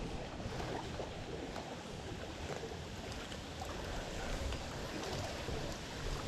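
Steady outdoor wind and water lapping against a fishing kayak, with a few faint clicks.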